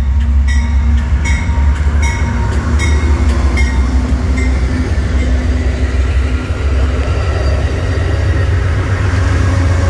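Amtrak Heartland Flyer passenger train rolling on the rails with a steady low rumble, its wheels clicking over rail joints about every three-quarters of a second; the clicks fade out about halfway through.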